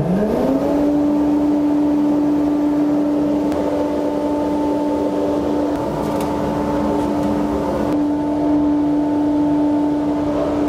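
Felder AF 22 dust extractor starting up: its motor's hum climbs in pitch over the first second as it spins up to speed, then runs steadily with a loud rush of air. It is a machine that is louder than an ordinary shop vacuum.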